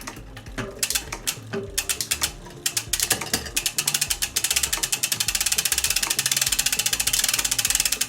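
Fat bike's rear freehub pawls clicking as the wheel turns. A few separate clicks at first, then from about three seconds in they come faster and faster until they run together into a rapid ticking.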